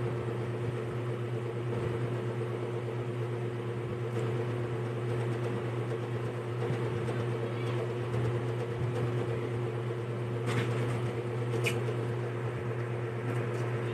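Steady electric motor hum of a running household appliance, with two short clicks about ten and a half and eleven and a half seconds in.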